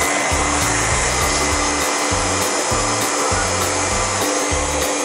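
Hand-held dryer running steadily, blowing a dog's coat dry after its bath, a continuous airy rush with a faint steady whine. Background music with a steady beat plays underneath.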